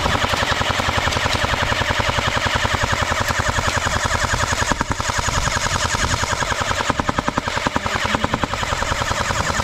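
Airsoft gun firing one long full-auto burst, a fast, even rattle of shots at a steady rate.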